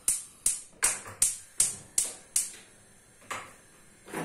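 Gas stove's spark igniter clicking as a burner is lit: about seven sharp ticks at a steady two or three a second, then one weaker click a little over three seconds in.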